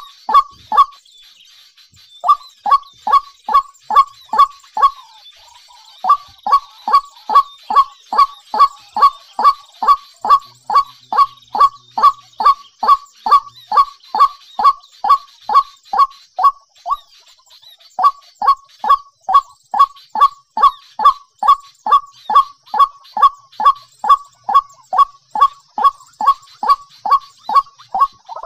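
A bird calling over and over in a fast, even series, about three short notes a second, each falling slightly in pitch, with brief pauses about a second in, near five seconds and around seventeen seconds. Faint high chirping of smaller birds runs underneath.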